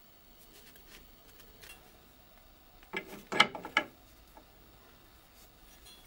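A short run of sharp metallic clacks and rattles, about three seconds in, as a steel workpiece is handled in a cast-iron machine vise.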